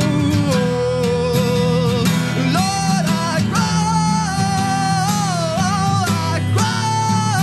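Live acoustic pop-rock performance: a strummed acoustic guitar with a voice singing long held notes that glide from one pitch to the next.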